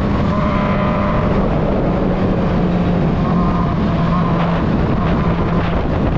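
Honda Hornet motorcycle's inline-four engine running steadily while riding, its note shifting slightly in pitch.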